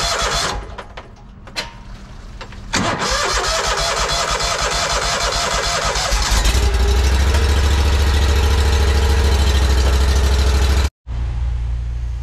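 Petrol engine of a high-pressure water jetter being fired up: it runs, falls away for about two seconds, picks up again, then runs louder and deeper from about six seconds in. Near the end it cuts abruptly to a lower, steady hum.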